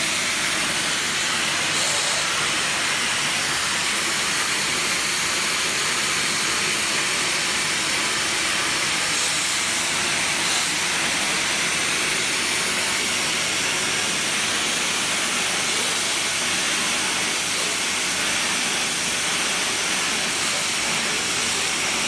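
Vacuum cleaner running steadily, drawing air through a brush nozzle on its hose: a constant high hiss.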